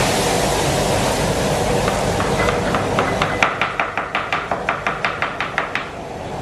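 A cleaver chopping spring onions on a wooden chopping block: a quick, even run of knocks, about five a second, from about two and a half seconds in until nearly six seconds. It plays over a steady rushing kitchen noise.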